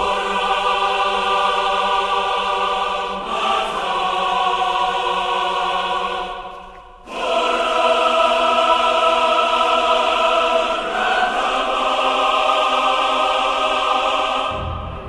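Soundtrack music of held choir chords. The chord shifts about three seconds in, the music dips and cuts back in abruptly about seven seconds in, and it fades near the end.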